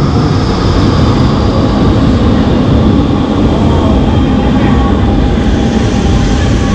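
Metro train in motion, heard from inside the car: a loud, steady rumble with a faint steady whine over it.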